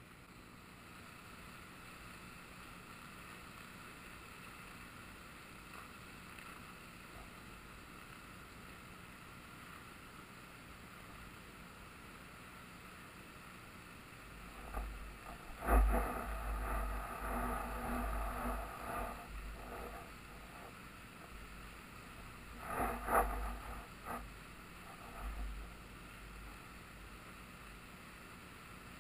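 Steady rush of fast-flowing flood water on a river, heard from just above its surface. Halfway through and again a few seconds later come louder spells of deep rumbling with sharp knocks, the sharpest about sixteen seconds in.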